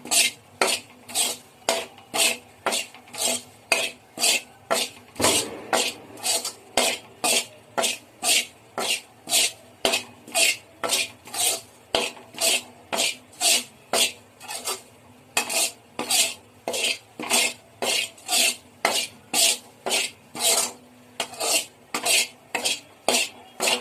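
Utensil scraping around a kadai in steady strokes, about two a second, stirring desiccated coconut powder as it dry-roasts on low heat to drive off any moisture.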